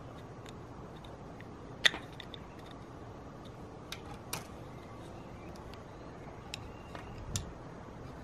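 Plastic Meccano pieces (strips, nuts, wheels and a plastic spanner) clicking and tapping against each other and a glass tabletop as they are handled and set down. There are a few scattered sharp clicks, the loudest about two seconds in, and a soft thud near the end, over faint steady background noise.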